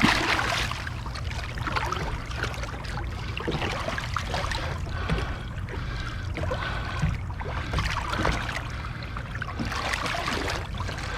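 Water sloshing and splashing at the side of a boat as a redfish is held in the water and revived, with a stronger splash at the start and a steady low rumble underneath.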